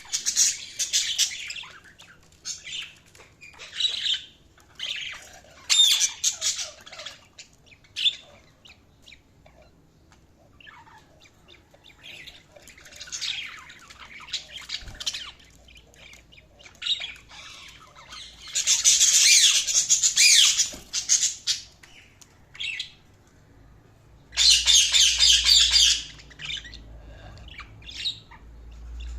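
Budgerigars chirping and squawking in short, high-pitched bouts with pauses between them, and two louder stretches of rapid, dense chatter in the second half.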